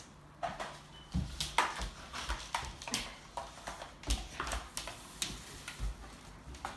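Broom bristles scraping and swishing over a hard tiled floor while a St Bernard puppy bites and tugs at the broom head. Irregular scrapes, knocks and clicks, with a couple of low thumps.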